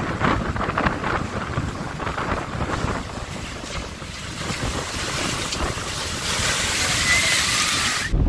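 Heavy storm surf breaking and washing over jetty rocks, with wind buffeting the microphone. The hiss of the foaming water builds over the second half, then cuts off suddenly near the end to a lower rumble.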